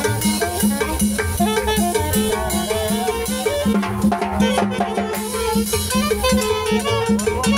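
Live Latin dance music from a small street band: a saxophone melody over drums and cymbal, keeping a steady dance beat.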